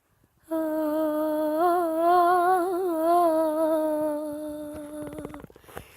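A woman humming a slow melody unaccompanied: one long held note that starts about half a second in, wavers through ornaments in the middle, and fades out near the end.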